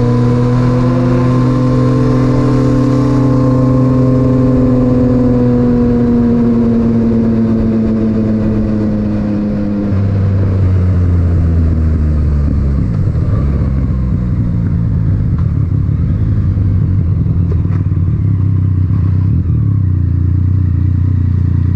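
Yamaha MT-09's three-cylinder engine running through an Akrapovic titanium exhaust while riding. The engine note holds, then slowly falls over about ten seconds as the bike eases off. Around the ten-second mark it shifts to a lower, steady note.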